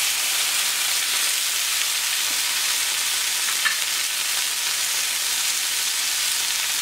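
Beef chuck and short ribs sizzling steadily as they sear on a hot plancha on an oiled cooking sheet, being crisped and browned. A single brief tick a little past halfway.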